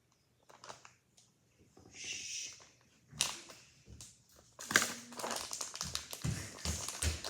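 Toy packaging crinkling and rustling as it is handled. A few scattered clicks at first, a short hiss about two seconds in, then busier crinkling from about halfway.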